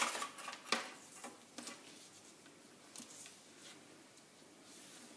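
Hands handling a cloth measuring tape and a marker on drafting paper: a few short rustles and scuffs as the tape is laid across the paper, the loudest at the start.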